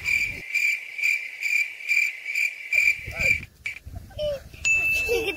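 Cricket chirping: a steady high trill pulsing about twice a second, stopping about three and a half seconds in.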